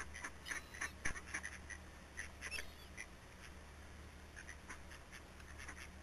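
Mallard ducks quacking in short calls, many in the first three seconds, then sparser. A sharp click about a second in.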